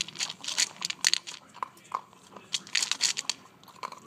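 A pet crunching dry food pieces from a glass bowl, with quick irregular crunches several times a second.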